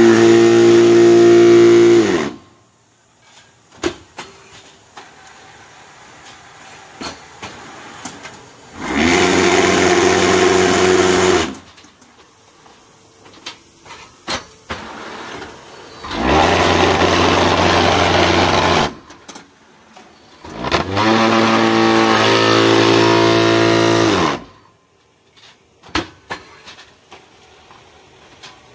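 QT6-15 concrete block making machine cycling: its vibration motors give a loud, steady hum four times, each burst lasting two to four seconds and cutting off sharply, while blocks are compacted in the mould. Between the bursts come clanks and knocks of the mould, pallets and hydraulics.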